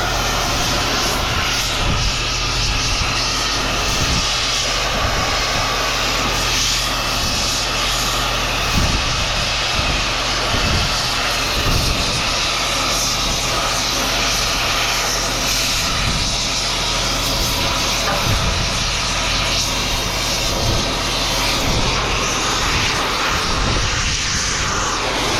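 An engine running steadily, with scattered knocks and clatter over it.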